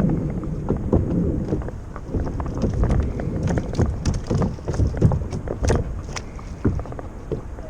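Water sloshing against a kayak hull, with wind buffeting the microphone and irregular small knocks and clicks throughout.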